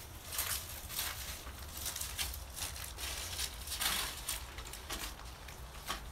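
Footsteps crunching on dry leaves and dirt, two or three steps a second, with louder crunches about four seconds in and near the end, over a steady low rumble.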